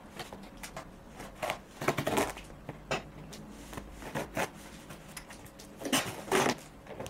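Scissors cutting into a parcel's packaging, with crackling and scraping in irregular bursts, the strongest about two seconds in and again near the end.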